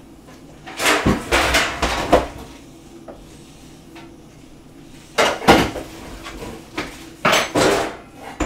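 Kitchenware clattering and scraping in three bursts, the first about a second long, as pots, pans or utensils are handled.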